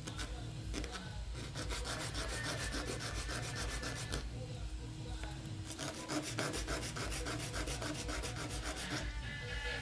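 Small 3D-printed plastic part rubbed back and forth on sandpaper in quick strokes, about six a second. The sanding comes in two runs with a short pause a little before the middle.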